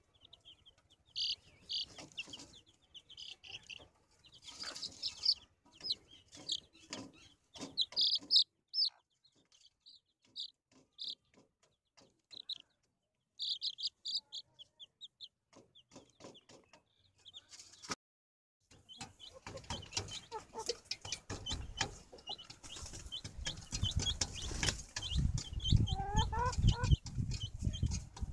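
Chicks peeping in short high calls while a hen clucks and pecks at a feed plate with sharp clicks. About two-thirds of the way through, a louder rough noise with a low rumble takes over, with a few calls still heard through it.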